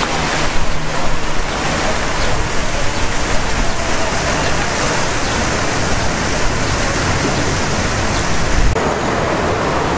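Water from a two-tiered park fountain splashing steadily into its basin, a constant hiss.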